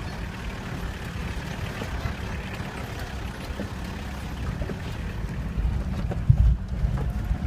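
Vehicle driving, a steady low rumble with a louder low thump about six seconds in.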